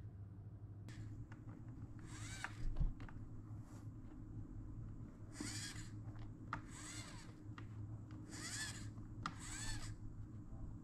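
Hands handling an RC truck, making about five short rubbing scrapes of about half a second each over a steady low hum.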